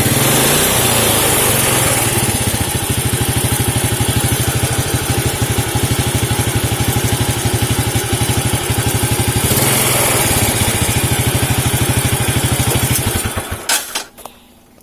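Engine running on engine oil blended with cooking oil. It revs briefly at the start, settles to an even idle, blips again about ten seconds in, then shuts off near the end, leaving a few clicks.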